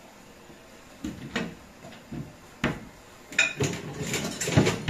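Handling noise as a bed sheet is spread and pulled straight over an ironing board: several light knocks and clatters, then a stretch of denser rustling and clattering near the end.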